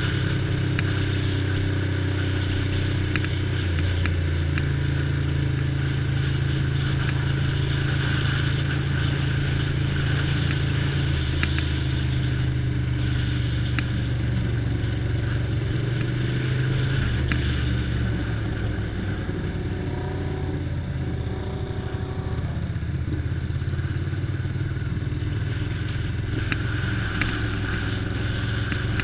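1988 Ducati Paso 750's 748 cc air-cooled V-twin running at low road speed, heard from the rider's helmet. Its note steps up about four seconds in, drops away around seventeen seconds, and picks up again near the end with throttle and gear changes.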